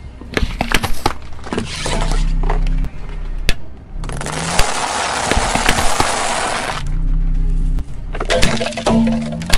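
A car tyre rolling over and crushing things on asphalt: scattered snaps and crackles, then a long steady crunch as a pile of dry egg noodles is ground under the tyre, and a burst of sharp cracks near the end as a plastic toy gives way.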